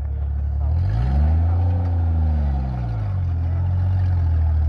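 Rock crawler's engine running with a low, steady hum, revving up once and easing back down about a second in.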